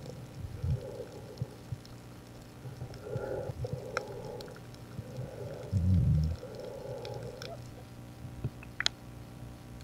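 Muffled underwater sound picked up by a diver's camera: swelling watery rumbles, a low thump about six seconds in, and a few sharp clicks.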